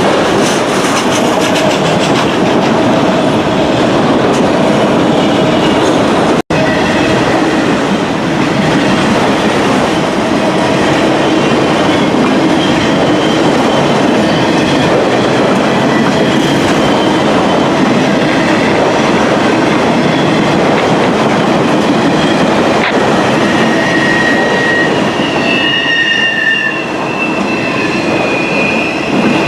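Freight train cars rolling past close by in a steady rumble with wheels clicking over the rail joints. Near the end, high wheel squeal rises over the rolling noise.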